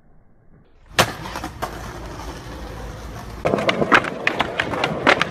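Skateboard wheels rolling on concrete, with a hard clack of the board about a second in and a quick run of sharp clacks and knocks from the board and trucks from about three and a half seconds.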